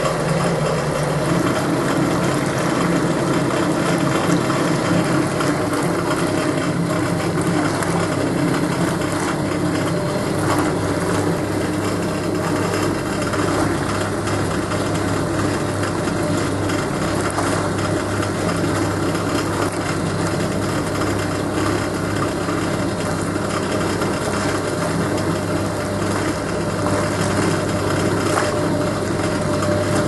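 Hoover W3590 single-tub washing machine running its wash: the motor hums steadily while the hot water and whites churn in the tub.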